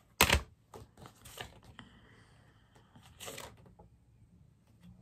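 A CD case being handled and opened: a sharp plastic click just after the start, then scattered lighter clicks and a papery rustle a little over three seconds in.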